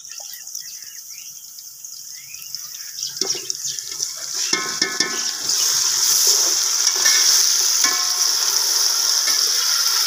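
Sliced onions frying in hot ghee in a large aluminium pot, a steady sizzle that grows louder about halfway in, with light scraping from a metal slotted spoon stirring them.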